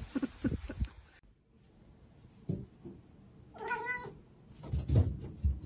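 A domestic cat meows once, a short call about halfway through. Several dull thumps come in the first second and again near the end, and the ones near the end are the loudest sounds.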